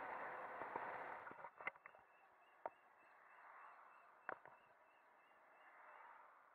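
Faint rushing wind and road noise picked up by a camera on a moving Volta BCN Sport electric motorcycle, louder for the first second and a half, then quieter. A few sharp knocks come through, with a faint high tone pulsing several times a second.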